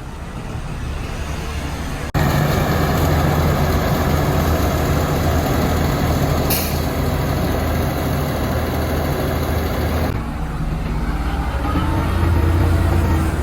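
Heavy dump truck's diesel engine running loudly at close range, with a brief burst of air hiss about six and a half seconds in. Near the end the engine note rises as it revs.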